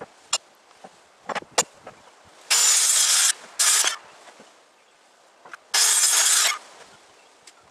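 A handheld power saw cutting lumber in three short runs, the middle one briefest, each starting and stopping abruptly. A few sharp knocks of wood come before them.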